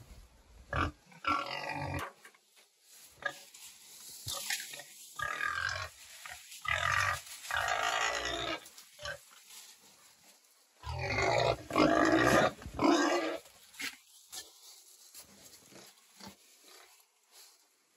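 A pig grunting and squealing in a series of short bursts, loudest about eleven to thirteen seconds in.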